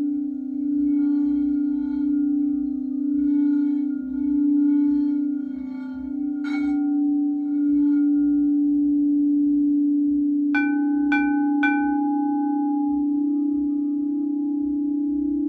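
Frosted crystal chakra singing bowls played with a ball mallet. One bowl's steady ringing tone swells and fades in slow waves, and a single strike comes about six seconds in. About ten seconds in, three quick strikes sound on a higher-pitched bowl, and both tones keep ringing together.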